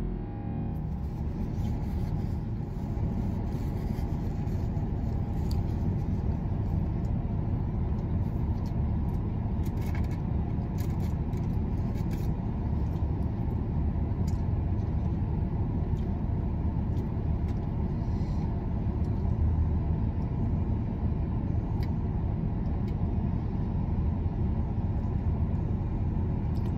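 Steady low rumble inside a parked large SUV's cabin with its engine idling, with a few faint clicks.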